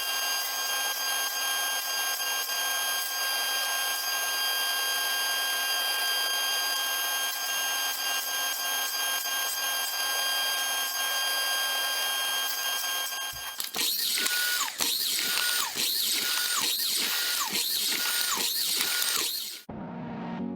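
Electric power tool running with a steady high whine, then worked in short strokes about twice a second, its pitch dipping with each stroke, before it stops near the end.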